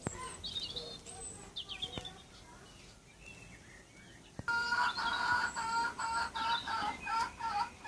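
Small birds chirping: scattered short, high chirps, then from about halfway a louder run of rapid, repeated chirps.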